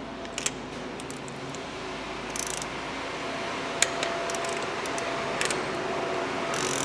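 Ratchet of a torque wrench clicking in short runs, with a few single metallic clicks, as glow plugs are tightened in a diesel cylinder head.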